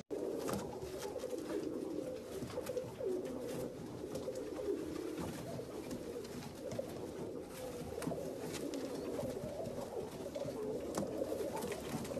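Domestic pigeons cooing continuously, with a few faint clicks.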